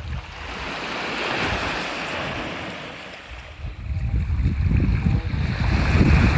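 Sea waves washing up a concrete slipway, one swell rising and falling away over the first three seconds. From about four seconds in, wind buffets the microphone with a low rumble.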